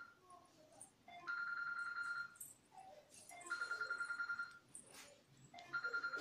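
A telephone ringing: a high, rapidly trilling electronic ring, heard three times, each ring about a second long and about two seconds apart.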